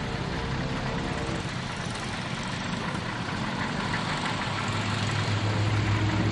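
Military vehicle engine running steadily, a noisy rumble that grows a little louder toward the end.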